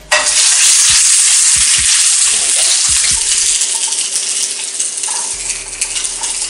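Frozen veggie burger patty hitting a hot pan: a loud sizzle that starts abruptly and slowly dies down, with a few light spatula knocks early on.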